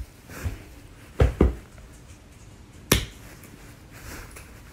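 Two soft thumps close together a little over a second in, then a single sharp click or tap about three seconds in: handling sounds of hands and a can in a small room.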